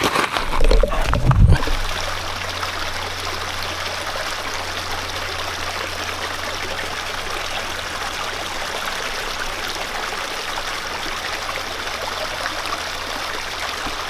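Stream water running steadily, after a loud low rumble in the first second and a half.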